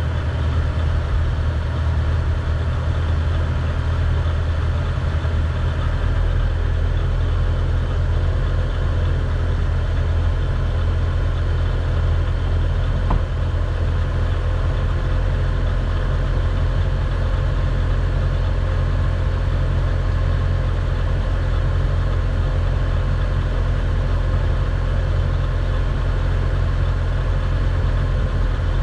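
Mitsubishi Varica 1.1's engine idling steadily, running again after its cylinder head was resurfaced and the head gasket replaced.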